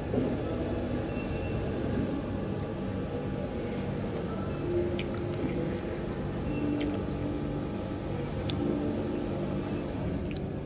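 Busy café room noise: a steady hubbub with faint background music and a few light clicks of tableware.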